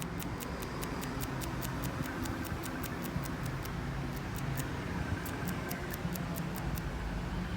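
Rapid, even ticking, about six ticks a second, over a low steady hum.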